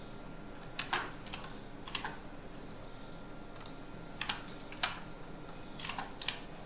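Computer keyboard keystrokes: several short clicks at uneven intervals, a few in quick pairs, over a faint steady hum.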